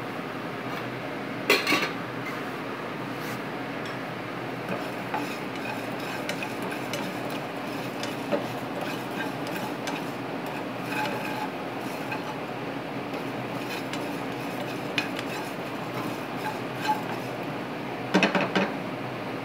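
A spatula stirring and scraping cumin seeds, coriander seeds and salt as they dry-roast in a nonstick frying pan, with louder scrapes about a second and a half in and again near the end, over a steady background hiss.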